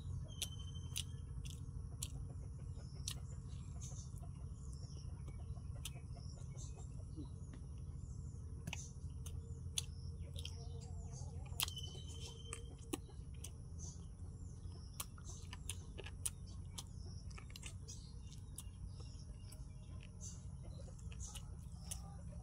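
Wet, sticky clicks of bare fingers mixing rice and gravy on a banana leaf, and of mouthfuls being chewed. Small birds chirp in the background, with two short whistled notes, over a steady low rumble.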